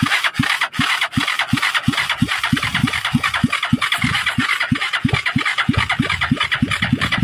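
Motorstar 200 single-cylinder motorcycle engine chugging slowly and unevenly at about three beats a second as it struggles to start. This is the hard starting and weak idle being diagnosed, traced so far to the CDI ignition and a stuck intake part.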